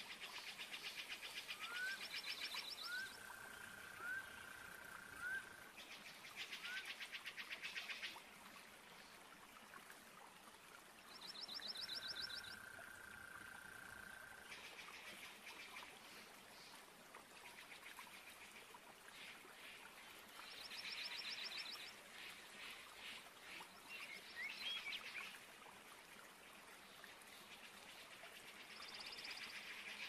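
Amazon rainforest ambience: bursts of rapid pulsing trills come and go, with a held whistled bird note and short rising chirps in the first seconds and again around the middle, over a faint steady hiss.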